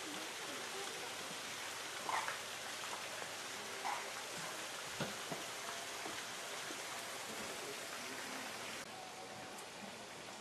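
Steady outdoor hiss, with a few faint short chirps or calls about two, four and five seconds in; the hiss drops a step in level near the end.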